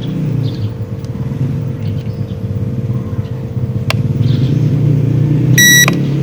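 Steady low motor hum with a constant tone in it, a single click about four seconds in, and a short high electronic beep near the end.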